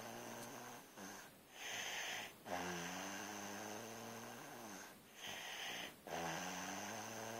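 Sleeping snoring in a steady rhythm: long droning snores of about two seconds, each followed by a shorter hissing breath.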